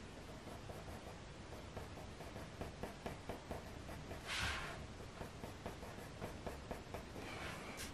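Faber-Castell Polychromos coloured pencil scratching on hot-press watercolour paper in quick, short flicking strokes, about three or four a second, with a longer, louder hiss about halfway through.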